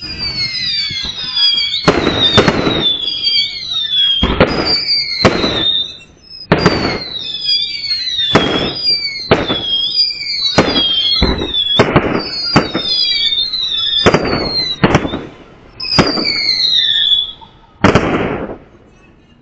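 Illegal aerial fireworks going off in quick succession: about fifteen loud sharp bangs, with many high whistles falling in pitch, each lasting about a second, between them. The last bang comes near the end.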